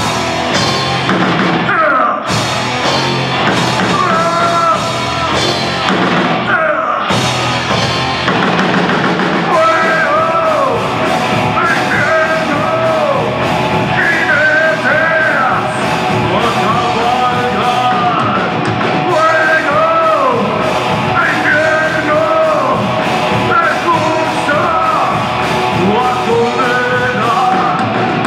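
Live rock band playing: distorted electric guitars, bass and drums, with a male lead vocalist singing over them. The playing is loud and steady.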